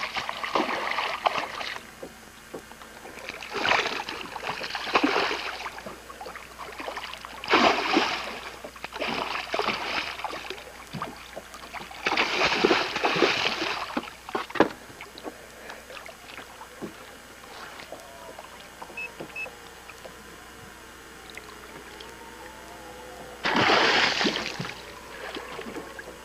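Water splashing at the side of the boat in short bursts, several times over the first fourteen seconds and once more near the end, as a hooked musky thrashes at the surface.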